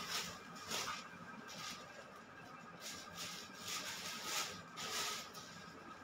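Short rustles of plastic garment packets being handled off-camera, coming about once a second.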